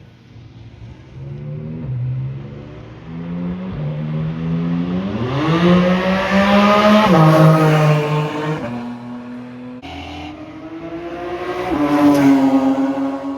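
Car engine accelerating hard. The pitch climbs in steps and falls sharply at each gearshift, with the longest climb and the loudest stretch around the middle and another climb near the end.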